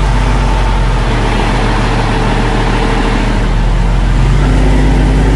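Motor vehicle engine running steadily at close range, a loud, even low drone with road noise over it.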